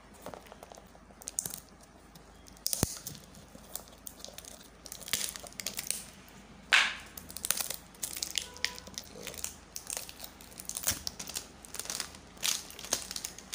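Cardboard gift box being handled and opened by hand: irregular rustling, scraping and tapping of cardboard and paper, loudest about seven seconds in.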